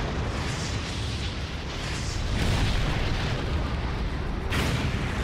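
Cartoon explosion sound effects: a continuous run of fiery blasts with heavy low rumble, swelling several times, and a sharp fresh blast about four and a half seconds in.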